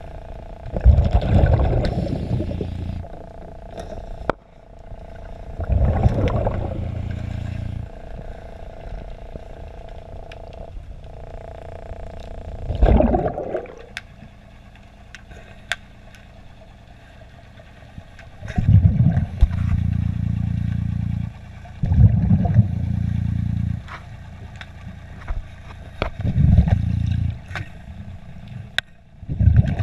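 A diver breathing through a regulator underwater: a rush of exhaled bubbles every few seconds, each followed by a low rumble lasting a second or two, with small clicks between breaths.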